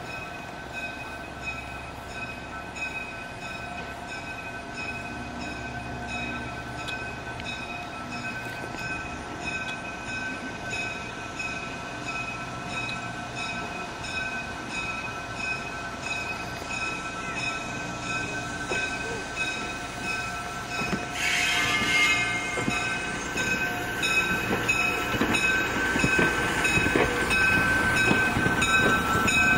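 Budd RDC diesel railcar running under power as it approaches and rolls close past, its engines throbbing under a steady high whine. It gets louder about two-thirds of the way through as it draws alongside, with wheels clicking over the rail joints.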